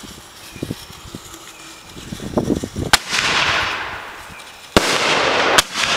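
Silver salute mortar shells firing from a mortar rack: after a few soft thuds, a sharp bang about three seconds in, followed by a long, fading hiss. Two more sharp bangs come near the end, the first with another sustained hissing tail.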